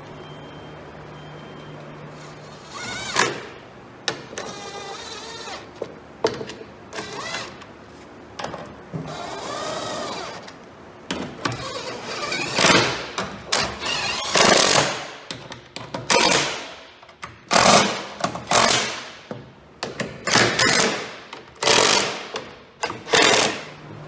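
Cordless drill/driver driving fasteners into a truck body panel in repeated trigger bursts. There are a few longer, steadier runs in the first half, then about ten short, loud bursts in the second half, several spinning down as the trigger is let go.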